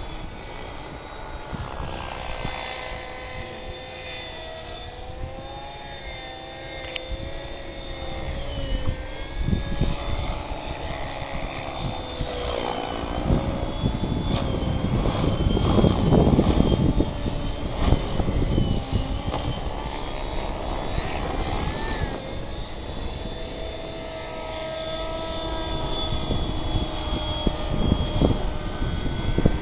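Compass 6HV electric 600-size RC helicopter in flight: its motor and rotor whine glides up and down in pitch as it manoeuvres. The sound swells louder and rougher about halfway through.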